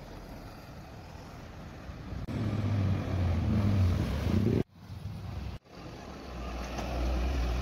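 Truck engines running as trucks drive past, heard in short clips that change abruptly. The engine hum gets louder about two seconds in, and there are two brief dropouts near the middle.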